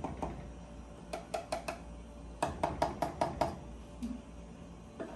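Light, sharp kitchen knocks while a carton of cream is emptied into a frying pan: about four taps a second in, then a quicker run of about seven midway.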